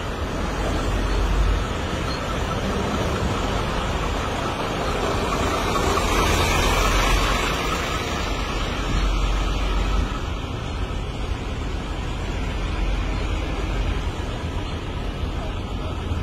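Steady road and wind noise from a car driving alongside a line of heavy trucks, with a constant low rumble; a hiss swells and fades a few seconds in.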